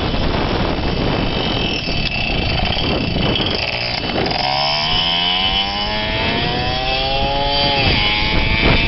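Moped engine revving over a loud rushing noise. About four seconds in, the engine's buzz climbs steadily in pitch for several seconds as it accelerates, then falls away abruptly near the end.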